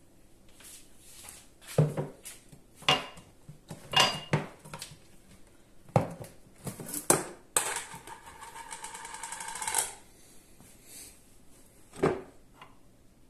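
Plastic knocks and clatter as a white plastic honey tub is set down on a stone worktop and handled, then a rapidly pulsing plastic creak that grows louder for about two seconds and stops suddenly as the tight lid is worked off the tub, and one more knock near the end.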